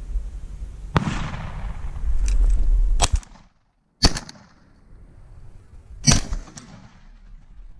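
Beretta ES100 semi-automatic shotgun firing several shots over about five seconds, each a sharp crack, the loudest about four seconds in.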